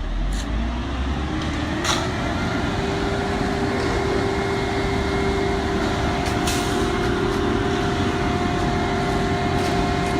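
Concrete mixer truck's diesel engine revving up over the first two seconds, then running steadily at raised speed with a steady drone while concrete is discharged for the pour.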